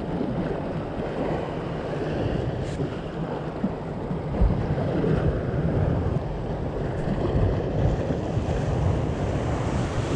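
Sea waves washing and breaking against shoreline rocks, with wind buffeting the microphone.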